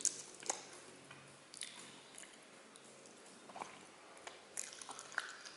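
Close-up sound of a person chewing spicy sauced chicken feet, with irregular sharp clicks and a few close together near the end.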